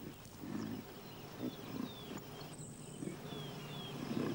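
Reindeer grunting softly: a string of short, low grunts, roughly one or two a second, with faint high chirps in the background.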